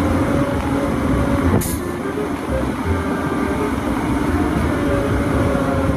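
Large Caterpillar wheel loader's diesel engine running steadily under load as it pushes rock with its bucket. A short hiss comes about one and a half seconds in.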